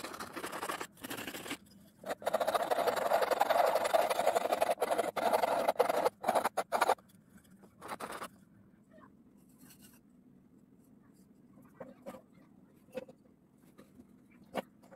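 Metal file scraping across the wooden bowl of a hand-carved ladle in several bouts of strokes, stopping about eight seconds in; after that only a few faint taps and clicks.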